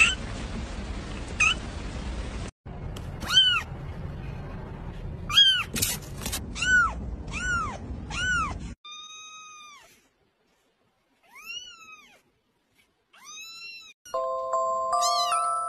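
Young kittens meowing: short, high-pitched mews in a quick run of about seven, then spaced further apart. Near the end a few steady musical tones sound under the mews.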